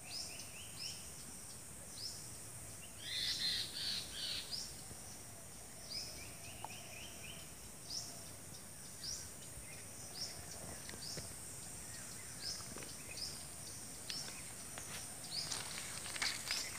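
Birds calling in the open: short high chirps repeated about once a second, with a couple of brief trills and a louder burst of calls a few seconds in, over a steady thin high whine. Near the end come a few clicks and rustles.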